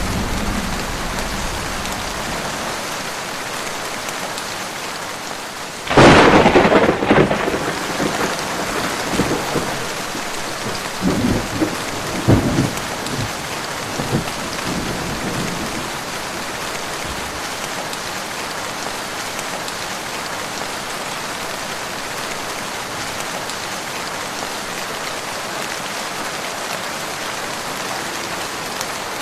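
Heavy rain falling steadily with a loud, sudden thunderclap about six seconds in, followed by several seconds of rolling rumbles, then rain alone.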